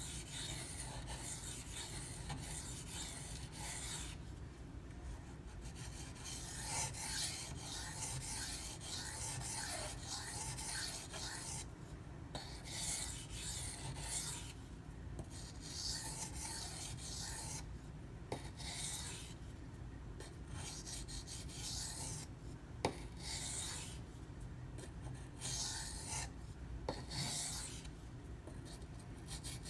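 Knife steel (154CM) scraping back and forth across the hard, soaked 1000-grit side of a combination waterstone, in runs of strokes with short pauses between them and a few light clicks. These are light back-and-forth passes to clean off the burr after sharpening.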